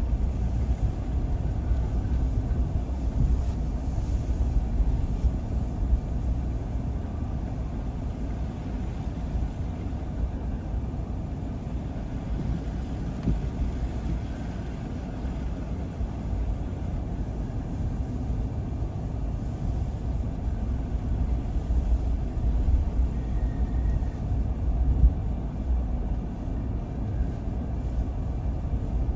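A car being driven along a road: a steady low rumble of engine and tyre noise that holds at an even level, with no sudden events.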